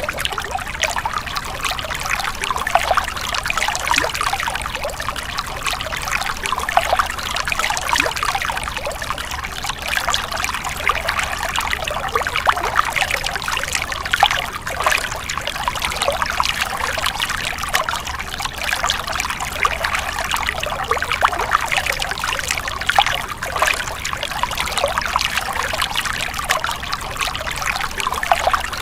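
Stream water splashing and trickling continuously, dense with small quick splashes, with a steady low rumble underneath.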